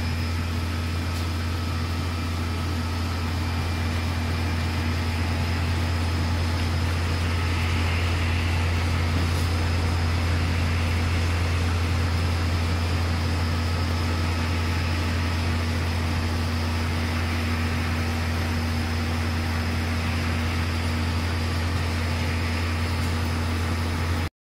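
Steady low machine hum of running offset printing equipment, cutting off abruptly near the end.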